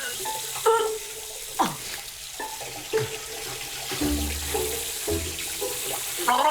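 Tap water running into a bathroom sink, with a few short falling plops about a second apart.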